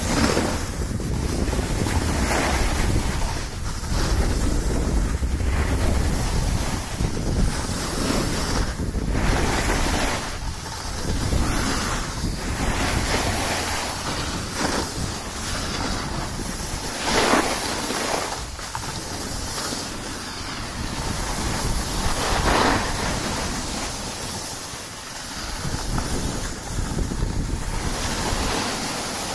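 Wind rushing over the microphone of a camera moving down a groomed ski slope, mixed with the hiss and scrape of edges sliding on hard-packed snow. The scrape swells and fades in repeated surges, the loudest about 17 and 22 seconds in, as turns are carved.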